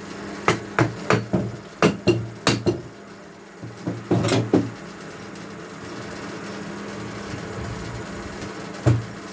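Wooden block knocked against the end of a centrifugal water pump motor's rotor shaft: a quick run of about eight sharp knocks, a few more about four seconds in, and a single knock near the end. The knocks drive the shaft to free the front housing and its end cover from the motor body.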